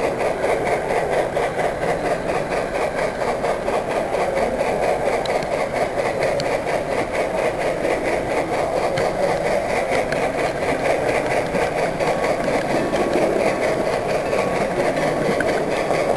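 Steady running drone of a model train rolling along its track, heard from a camera riding on the train.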